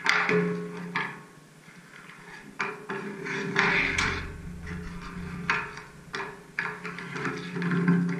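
Ice hockey pucks being shot on an outdoor rink: a series of sharp clacks as sticks strike pucks and pucks hit the net or boards, every second or so, with skate blades scraping the ice.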